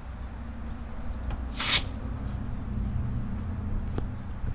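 A short burst of hissing compressed air from an air hose about a second and a half in, over a low steady hum.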